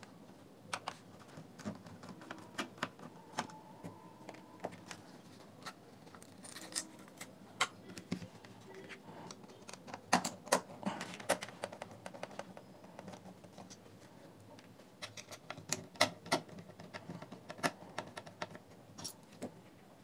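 Screwdriver turning out the small mounting screws of the speaker drivers in a Bluetooth speaker's plastic housing, with the screws and parts handled: scattered light clicks and ticks, bunched about ten seconds in and again near the end.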